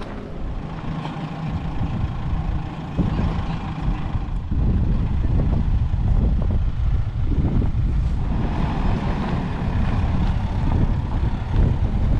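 A camper vehicle running on the road: a steady low engine and road rumble that grows louder about three to five seconds in.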